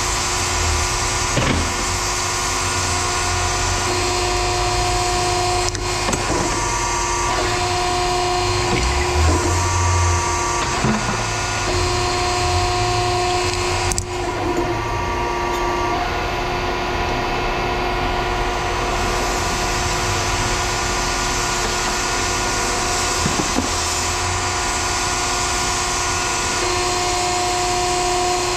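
Heavy machinery running steadily, with whining tones that come and go and a few short knocks and clanks.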